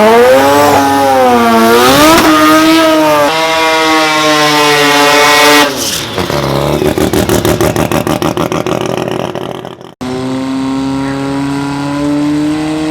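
Front-wheel-drive drag car engine revving hard, its pitch swinging up and down, then dropping into a rapid stuttering pulse several times a second. After an abrupt break it holds a steady high rev.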